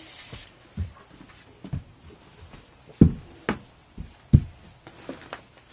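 A short hiss of teat after-spray at the start, then about six dull thumps of a Saanen goat's hooves stamping and kicking, the doe fidgeting because she dislikes being sprayed.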